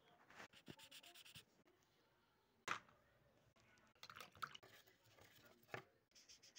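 Faint scratching and rubbing on drawing paper, in short stretches, broken by a sharp tap a little under three seconds in and another near the end.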